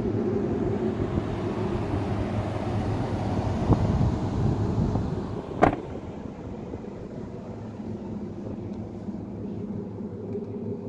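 GMC Sierra pickup's engine idling steadily. A single sharp slam about halfway through, like a vehicle door shutting, after which the engine sounds quieter.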